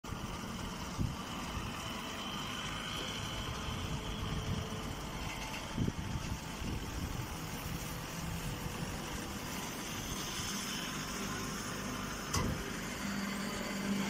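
Hydraulic hay baler and its feed conveyor running steadily, with a few short knocks. A steady low hum comes in near the end.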